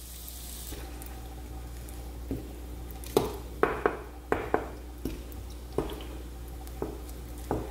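Wooden spatula working a runny egg-and-cheese mixture over potatoes in a nonstick frying pan: soft wet squishing, with about ten light, sharp knocks of the spatula scattered from about two seconds in.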